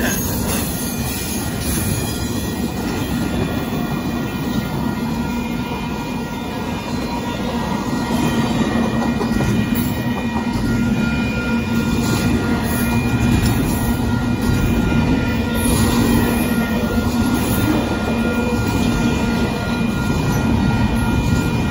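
BNSF intermodal train's double-stack container well cars rolling past at speed: a continuous heavy rumble and clatter of steel wheels on rail, with faint steady high-pitched tones over it.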